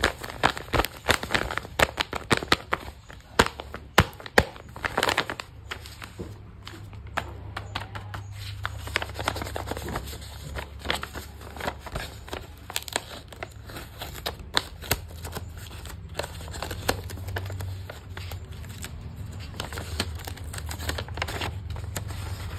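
Blind-bag wrapping being handled and crinkled: dense, sharp crackles for about the first five seconds, then sparser crinkles over a steady low hum.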